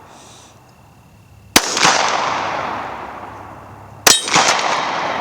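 Two shots from a Glock 21 .45 ACP pistol, about two and a half seconds apart, each trailing off in a long echo.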